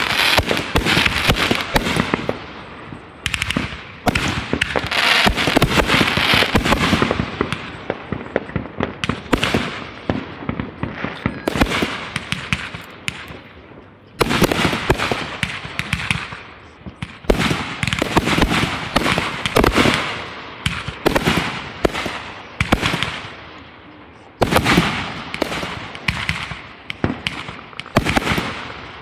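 Fireworks going off in rapid succession: dense bangs and crackling, with fresh loud volleys starting about 4, 14 and 24 seconds in.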